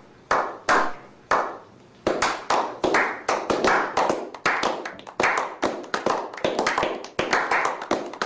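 A slow clap building into applause: three single hand claps spaced about half a second apart, then from about two seconds in a small group of people clapping together steadily.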